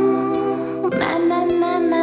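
Acoustic guitar with voices singing long held notes. The chord and the sung notes change with a fresh strum about a second in.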